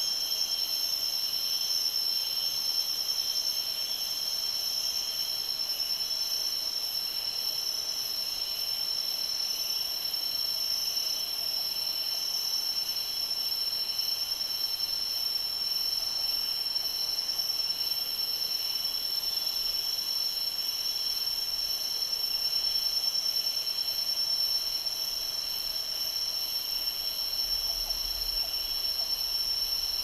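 Jungle insect chorus: several steady, high-pitched drones at different pitches layered over one another, with a fainter lower drone beneath.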